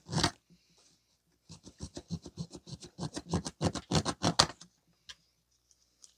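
Saw blade held by hand sawing through the thin steel can of an automotive oil filter, in a run of quick back-and-forth strokes, about six a second, from about a second and a half in to about four and a half seconds in. A single stroke comes at the start and a few faint scrapes follow near the end.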